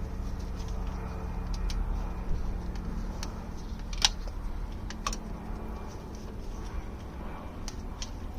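Scattered metallic clicks and clinks of hand tools working on the bolts of a Morris Minor's heater valve, one sharper clink about four seconds in, over a steady low rumble.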